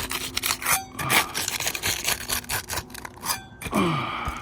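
Metal roofing snake scraping and knocking under asphalt shingles as it is worked in to reach and pull the roofing nails: an irregular run of scrapes and taps.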